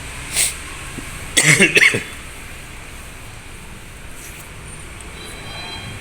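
Steady rain and wind noise, with a short sharp sound near the start and a louder, half-second burst about a second and a half in.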